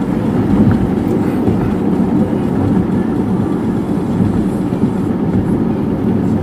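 Steady road and engine noise inside a moving car's cabin: a continuous low rumble with no breaks or changes.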